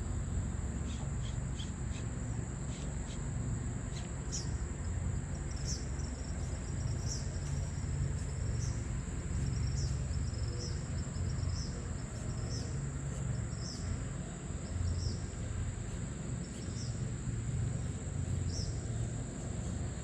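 Insects droning steadily at a high pitch, with short chirps repeating about once a second, over a constant low rumble.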